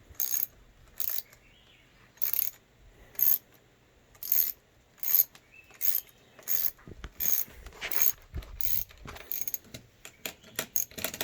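Socket ratchet clicking in repeated short strokes as a bolt is screwed in, about one stroke a second at first and quicker near the end.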